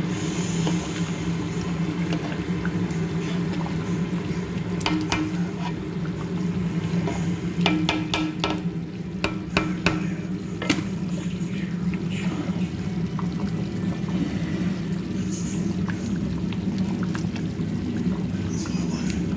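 Pot of fish stew being stirred and handled, with a few sharp clinks of a utensil against the pot near the middle, over a steady low hum.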